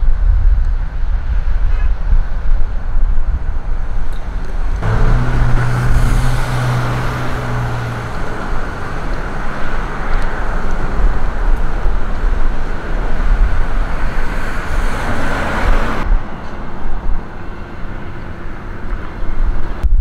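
Road traffic on a multi-lane city street, with a low rumble throughout. About five seconds in a louder rush of passing vehicles begins, with an engine hum for the first few seconds of it, and it cuts off abruptly about eleven seconds later.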